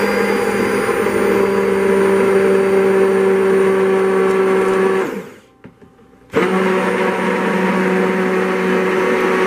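Stick (immersion) blender running in a plastic pitcher of lye solution, whirring steadily to break up the silk dissolved in it. It stops about five seconds in, winding down briefly, and starts again a little over a second later.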